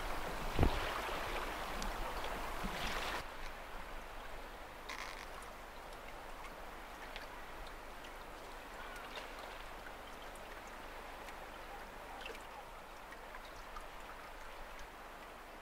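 Wind and water noise with one thump about half a second in; after about three seconds the noise drops and distant waterbirds call faintly now and then.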